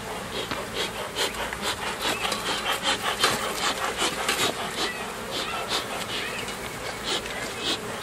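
Wood scraping and rubbing on wood in a quick series of short, rasping strokes as wooden beehive parts are worked. The strokes thin out after about five seconds, and honeybees buzz around throughout.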